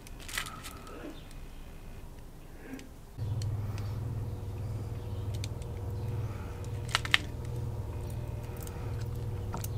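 A few small sharp clicks of fingers handling tiny metal parts of a model locomotive's motor (its brush and spring), with a pair of clicks close together about seven seconds in. A steady low hum starts suddenly about three seconds in and carries on underneath.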